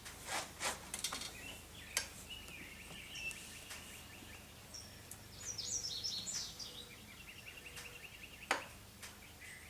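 Quiet lull with faint bird chirps, a quick run of short falling calls in the middle, and a few soft clicks and knocks, the clearest about two seconds in and near the end.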